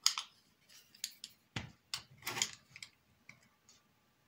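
Pliers and a screwdriver working a small screw and nut on a clear plastic plate: irregular small clicks and scrapes of metal tools on metal and plastic, with a louder knock about one and a half seconds in.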